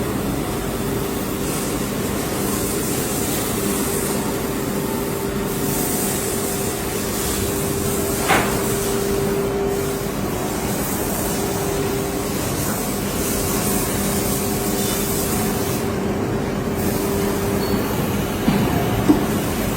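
ATC CNC router running: a steady hum over continuous mechanical noise, with a brief sharp squeak about eight seconds in.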